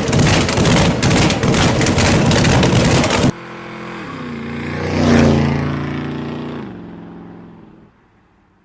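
Loud, rough engine rumble from a car close by for about three seconds, cut off abruptly; then a car's engine passes by, growing louder to a peak and fading away, its pitch shifting as it goes.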